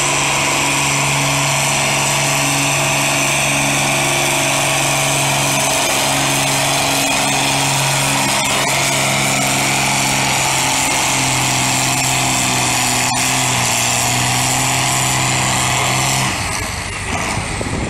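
Antique tractor engine running at full throttle, pulling a weight sled down the track, its pitch holding steady with slight dips. About 16 seconds in the engine drops back sharply as the pull ends.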